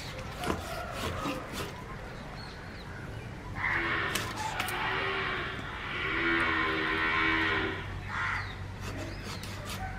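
A water buffalo lowing: one long call of about four seconds starting about three and a half seconds in, with a brief dip partway. A few sharp knocks are heard before it.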